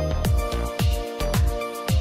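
Background music with a steady beat of deep drum thumps, about two a second, under held chords.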